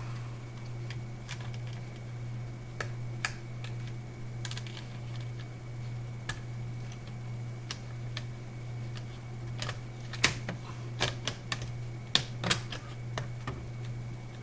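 Scattered light clicks and taps of plastic laptop parts being handled and fitted, most likely the screen bezel being positioned, getting busier and louder about ten seconds in. A steady low hum runs underneath.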